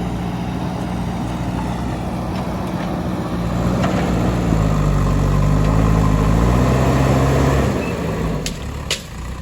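JCB 3DX backhoe loader's diesel engine running, getting louder and changing pitch from about four seconds in as it works under load, then easing off near the end. Two sharp clicks come just before the end.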